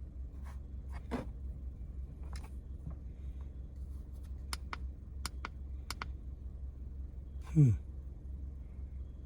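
Sharp clicks of switch-panel buttons being pressed: about five in a second and a half midway, over a steady low hum. Near the end comes a brief falling sigh.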